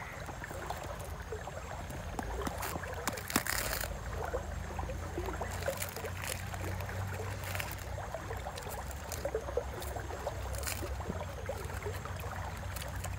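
Charred husks of a roasted corn cob rustling and crackling as they are peeled off by hand, with a few sharper snaps. A steady low rumble runs underneath.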